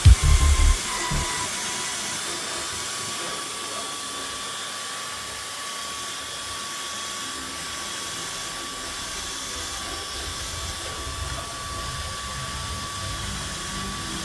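A small machine motor running steadily: an even hiss with a faint steady high whine, after a few loud low knocks right at the start.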